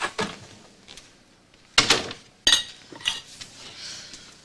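Dishes and cutlery clinking and clattering in a few separate sharp strokes, the loudest two near the middle.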